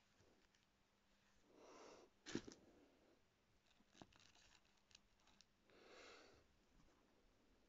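Faint handling noise: tissue paper and a knit glove being rustled and smoothed, in two soft swells, with a light click about two and a half seconds in and a few fainter ticks after it.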